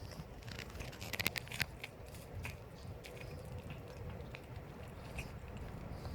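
Calico cat chewing with small crunching clicks, with a quick cluster of louder crunches about a second in, over a steady low rumble.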